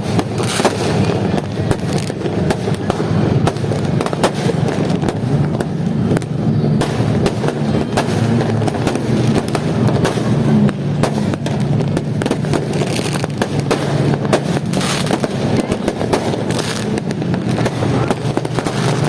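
Many fireworks going off at once: a continuous, irregular run of overlapping bangs and crackles with no pause.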